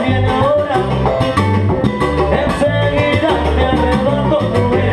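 Salsa band playing live: congas and bongos, a repeating bass line, piano and drums in a steady dance groove.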